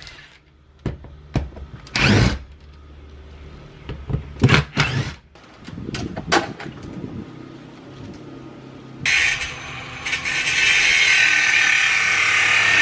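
Cordless drill-driver taking screws out of a camper's window frame and siding: scattered short bursts and knocks. About nine seconds in, a power tool starts running steadily and keeps going.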